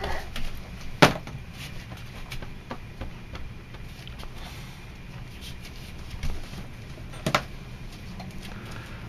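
Plastic toys being handled in a playpen: two sharp knocks, about a second in and again about seven seconds in, with a few lighter taps between.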